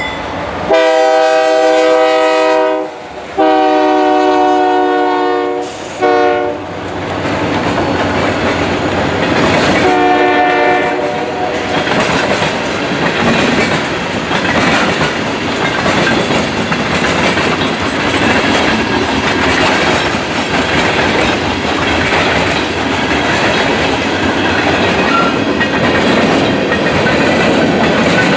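Air horn of a GE C40-8 diesel freight locomotive sounding the grade-crossing pattern: two long blasts, a short one and a final long one. It is followed by the locomotives and a long string of tank cars and covered hoppers rolling past with a steady clickety-clack of wheels over rail joints.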